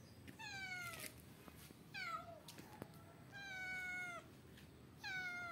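Domestic cat meowing four times, each meow falling in pitch, the third drawn out longest: the calls of a cat stuck on a roof, unable to get down.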